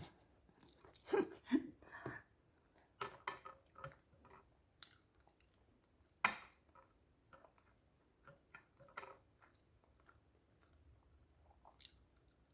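Close-miked chewing of food with irregular crisp crunches and wet mouth sounds, coming in clusters. The sharpest crunch comes about six seconds in, and it grows quieter toward the end.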